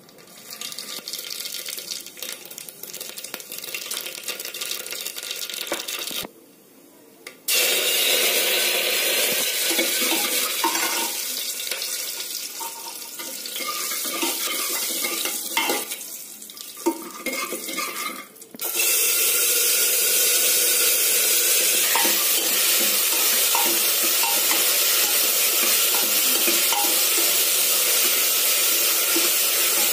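Food sizzling in hot oil in an open pressure cooker, with a spatula scraping and knocking against the pot as it is stirred. The sound drops out briefly about six seconds in. From about two-thirds through, a steady, louder frying hiss comes in as chopped vegetables fry in the oil.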